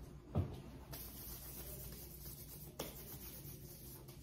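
Gloved hands rubbing in hand sanitizer, a faint steady rubbing. A short knock comes about half a second in, and a smaller click near three seconds.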